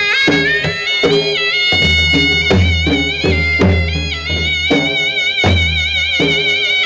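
Gujarati folk ras music: a high, reedy wind-like lead melody held with vibrato and ornamented pitch turns, over steady low drum beats about twice a second.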